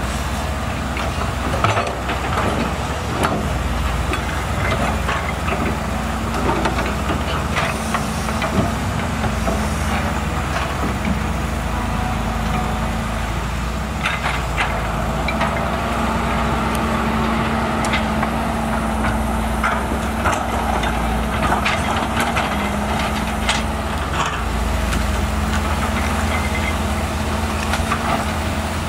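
Volvo EC210BLC excavator's diesel engine running steadily under digging load with a constant hum, over which come scattered knocks and cracks as the bucket works soil and debris.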